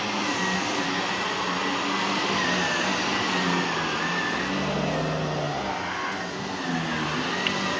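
Vacuum cleaner running: rushing air with a wavering high whine and a motor hum whose pitch shifts a little as it works, dipping briefly about six seconds in.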